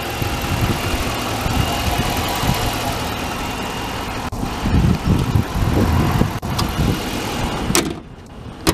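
A 5.7-litre Hemi V8 idling steadily, with uneven low thumps midway. Near the end there is a sharp bang as the hood is shut, after which the engine sounds quieter, followed by one more sharp knock.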